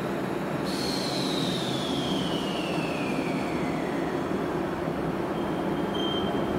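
Two-car JR electric local train pulling in slowly along a platform. Under its steady running rumble, a high whine falls smoothly in pitch for about three seconds as it slows. A brief high squeal comes near the end.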